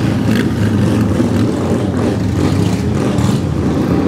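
Motorcycle and car engines idling together at close range, a steady, uneven low rumble.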